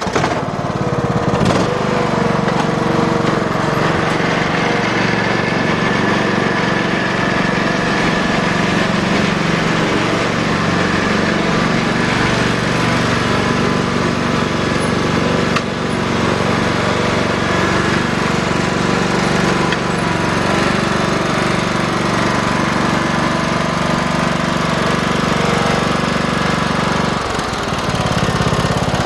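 Troy-Bilt Bronco riding mower's Kohler engine running steadily with the blades engaged, cutting tall grass. The engine note dips briefly near the end, then steadies again.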